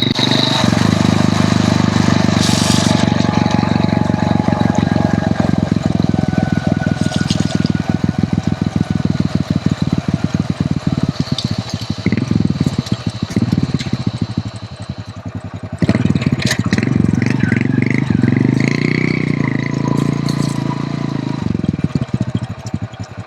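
Hero Honda CD100's small single-cylinder four-stroke engine running steadily while the motorcycle is ridden, its firing pulses clearly heard. The level drops near the end.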